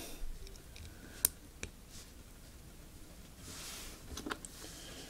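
Plastic Lego bricks clicking and tapping as they are handled and fitted together: a few faint, sharp clicks scattered through, with soft handling noise in between.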